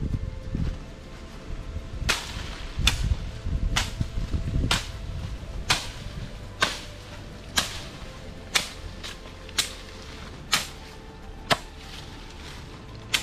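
Machete chopping into the ground and undergrowth while clearing brush, a sharp strike about once a second.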